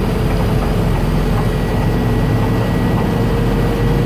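Inside the cab of a 1969 M43B1 military truck: its engine and geared drivetrain running steadily at low speed in four-wheel drive, a constant low hum with a steady whine on top, and the cab heater blowing.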